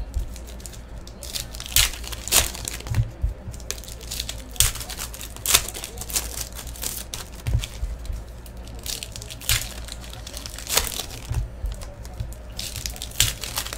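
Foil trading-card packs being torn open and their wrappers crinkled as the cards are pulled out: an uneven run of sharp crackles and rustles.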